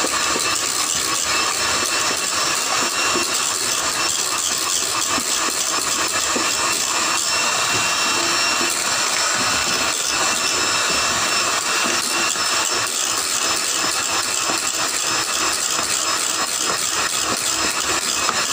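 Electric hand mixer running steadily, its beaters whipping cream in a steel bowl, a constant motor whine with a rattling hiss. The cream is being beaten toward a stiff, non-runny consistency.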